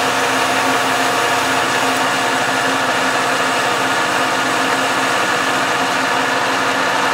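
Metal lathe running steadily with the auto feed engaged, the left-hand cutter feeding along the work and taking a cut.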